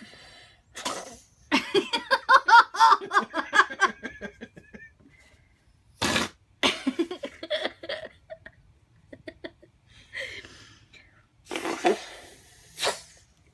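Whoopie cushion squeezed out in a long buzzing fart noise starting about a second and a half in, followed by several shorter bursts.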